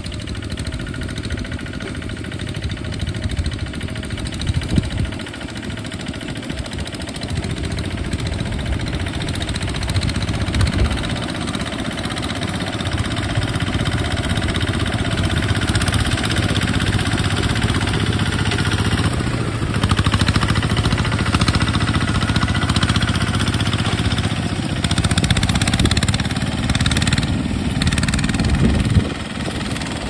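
A Kubota two-wheel walking tractor's single-cylinder diesel engine runs steadily as it pulls a boom sprayer through the paddy. It grows louder about a third of the way in and drops briefly near the end.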